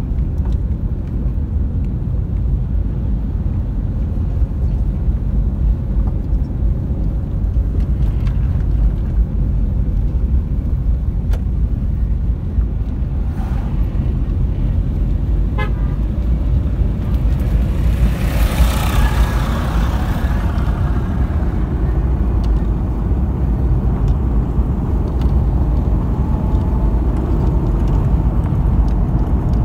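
Steady low rumble of a vehicle on the move, with a brief louder rush of noise a little past halfway.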